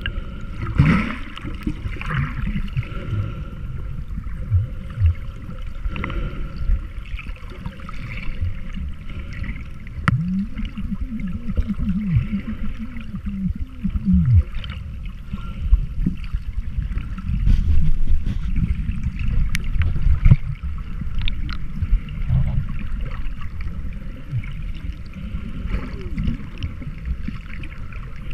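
Water heard through a camera held underwater: a low, muffled rumble of moving water with gurgling and a few brief clicks.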